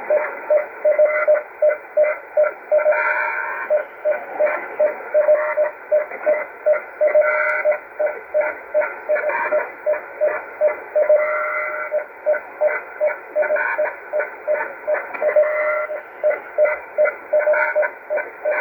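Shortwave receiver in upper-sideband mode at 5235 kHz, playing an unidentified signal. A single tone, about 600 Hz, is keyed on and off in quick, uneven pulses, several a second with some longer held stretches, over a steady hiss of band noise. The listener wonders whether it is CODAR coastal ocean radar.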